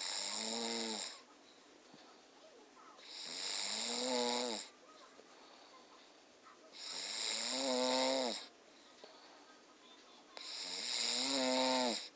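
A sleeping person snoring: four long snores, each about one and a half seconds, coming about every three and a half seconds, each with a pitch that rises and then falls, with quiet in between.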